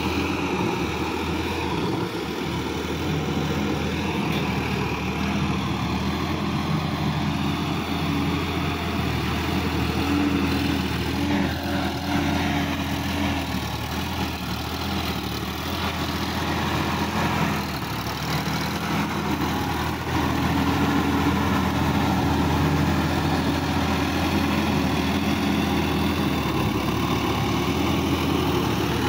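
Sonalika DI-50 RX tractor's diesel engine running steadily under load as it tills a flooded, muddy paddy field, getting a little louder from about 20 seconds in.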